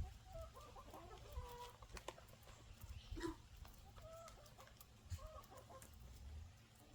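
Chickens clucking softly, a scatter of short bending calls, with a few faint sharp clicks.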